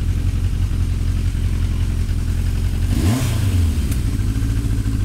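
1981 Yamaha XJ750's inline-four engine idling steadily, running on its new wiring, with one brief throttle blip about three seconds in that rises in pitch and settles back to idle.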